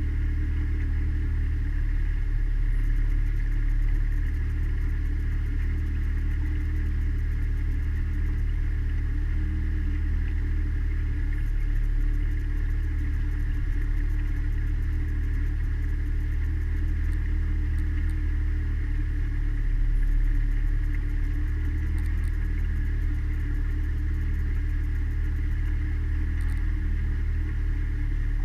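Mariner outboard motor pushing a small cabin cruiser along at a steady cruising speed: a constant low engine drone.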